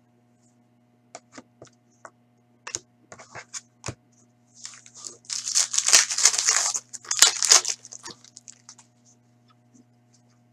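A foil trading-card pack being torn open: a loud crinkling, tearing rustle for about three seconds in the middle, after a few light taps and clicks of cards being handled.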